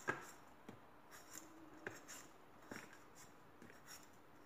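Faint, irregular scrapes of a metal vegetable peeler stripping the skin off a raw potato, a short stroke every half second to a second.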